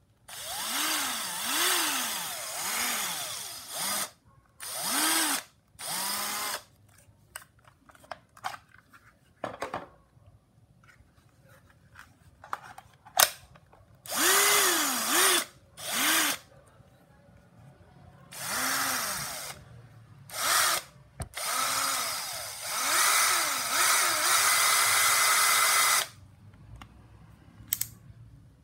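Bosch GSB 180-LI 18V cordless combi drill running in short bursts, its motor whirring up and down in pitch as the variable-speed trigger is squeezed and let go. There are small clicks between runs, and near the end a longer run holds steady at top speed for a few seconds.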